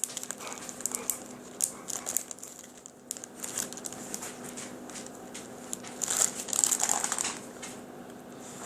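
Plastic bag crinkling as it is handled, with irregular crackles and a louder stretch of rustling about six seconds in.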